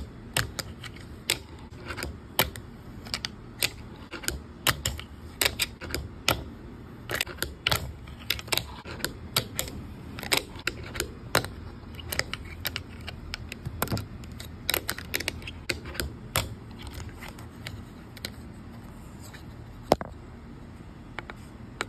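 Fingerboard with Blackriver trucks and wheels being ridden on a fingerboard ledge: an irregular run of sharp clacks as the board is popped, landed and slid on the edge. A low steady rumble runs underneath, and one clack near the end is the loudest.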